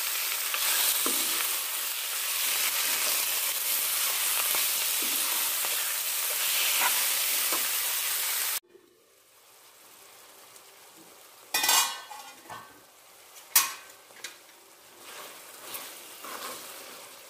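Goose meat frying and sizzling loudly in a steel kadai with onions and spices, stirred with a steel ladle to coat the meat in the masala. About halfway through the sizzle cuts off suddenly and goes on much quieter, with a couple of sharp knocks of the ladle against the pan.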